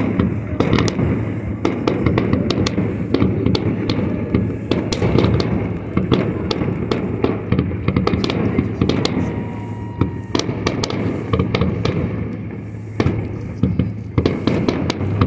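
Aerial fireworks shells bursting in a rapid barrage: many bangs and crackles a second, overlapping into a continuous low rumble, easing briefly about thirteen seconds in.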